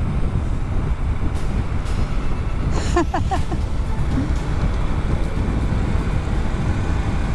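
Motorcycle riding at speed, heard on an onboard microphone: a steady rush of wind noise over a low engine rumble. A brief cluster of chirps cuts through about three seconds in.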